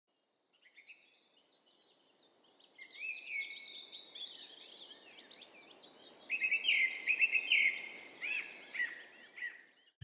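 Recorded nature soundscape of birds singing and calling, many chirps and trills overlapping, over a faint background hiss; the song grows louder and busier about six seconds in.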